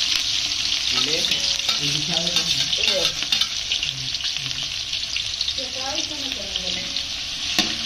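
Birthday-cake fountain sparkler candle burning with a steady crackling hiss, with voices talking under it; the hiss stops suddenly at the very end.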